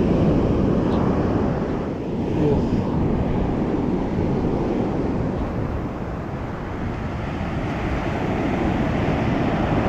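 Wind buffeting the microphone over the steady wash of surf on the beach.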